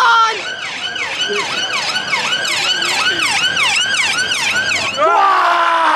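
Emergency vehicle siren on a fast yelp, its pitch rising and falling about three times a second. Near the end a louder, slower falling tone cuts in.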